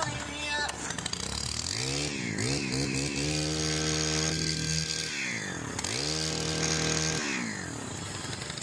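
STIHL BT 131 earth auger's small 4-MIX engine revved up from idle and held at high speed, twice, dropping back to idle between and after. This is a throttle test after a tune-up and a new throttle cable.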